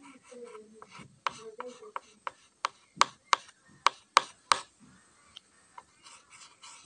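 A stick of chalk scraping across a dark chalk board in short, quick strokes, about two to three a second, loudest around the middle and then thinning out to a few faint ones.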